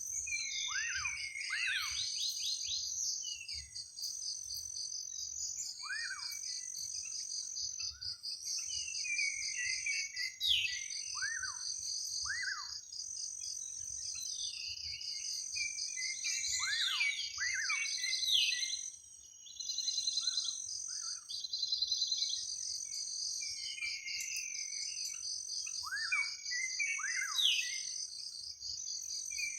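Forest ambience: a steady, high-pitched insect trill, with a higher chirp repeating about every second and a half. Over it, birds call again and again with quick falling whistles and chirps. The bird calls drop out for a moment a little past halfway.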